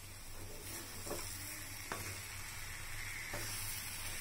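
Sliced banana with grated coconut, sugar and sesame sizzling in hot ghee in a frying pan. A spoon stirs the mixture, scraping the pan a few times.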